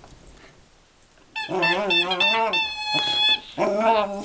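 Rubber squeaky toy squeaked over and over by a dog's chewing, in a quick run of squeaks starting about a second and a half in. Some squeaks are held at one steady pitch, others waver up and down.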